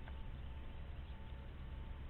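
Steady low rumble and hiss of background noise with a faint steady hum, and one faint click just after the start.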